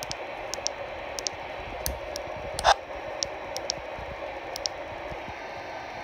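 Steady CB radio static hissing from the speaker, with scattered short clicks of buttons being pressed on the radio and one louder knock a little before halfway.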